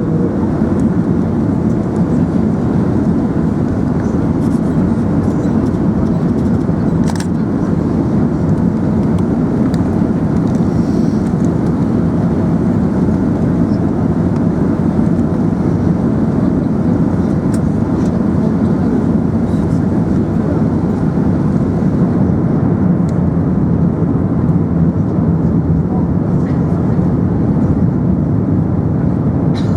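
Steady cabin noise inside an Emirates Airbus A380: an even rumble of engines and airflow with a low hum, unchanging throughout, with a few faint clicks.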